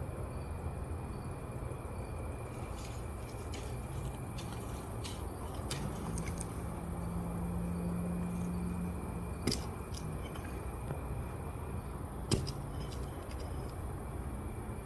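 Quiet background with a low steady hum that swells a little partway through, and a couple of faint clicks.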